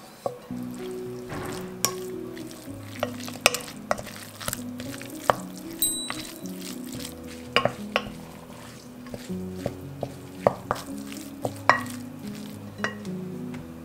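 Wooden spoon stirring minced meat in a glass bowl, with a dozen or so sharp clicks where the spoon knocks against the glass. Soft background music plays underneath.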